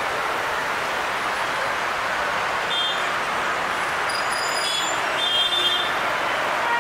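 A steady rushing roar of distant engines, with a few short, high chirps or beeps about three seconds in and again near the end.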